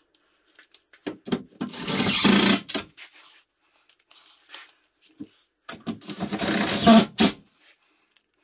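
Cordless drill driving screws: two runs of the motor, each a little over a second, with small clicks and handling of screws between them.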